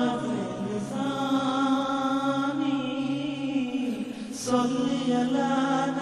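Intro music of chant-like voices holding long, steady notes. About four and a half seconds in, a short high hiss marks a change to a new held note.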